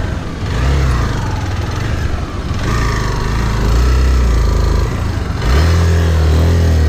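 Motorcycle engine running at low revs as the bike creeps through mud beside another vehicle, a steady low drone that drops away briefly about five seconds in and returns louder.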